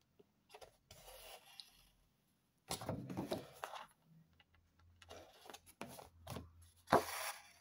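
A paper card being handled and turned over on a wooden tabletop while being stitched with thread, giving several bursts of rustling and rubbing.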